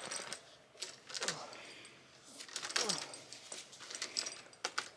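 Steel chain hanging from a tree branch clinking and rattling in irregular metallic clicks as a person climbs it hand over hand, with a few short sounds that drop in pitch.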